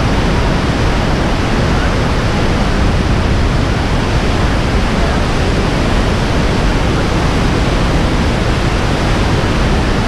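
Iguaçu Falls: huge cascades of water plunging into the gorge close by, a loud, steady rush of falling water with no letup.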